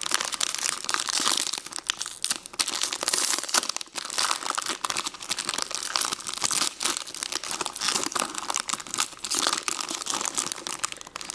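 Plastic toy packaging being crinkled and torn open by hand, a continuous crackling and rustling.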